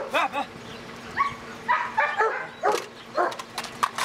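Police sniffer dog whining and yipping in a series of short, high calls.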